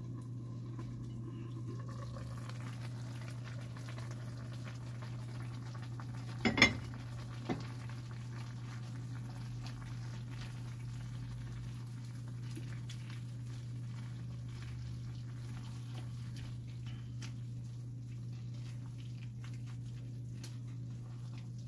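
A glass pot lid is lifted off a wok and set down: two sharp knocks about six and a half seconds in and a smaller one a second later. Then a wooden spatula stirs and scrapes simmering vegetables and sausage in the wok, with small clicks throughout, over a steady low hum.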